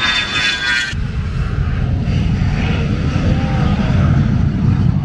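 A-10 Thunderbolt II's twin turbofan jet engines on a low pass: a high, slightly falling whine for about the first second, then a loud, steady jet rumble.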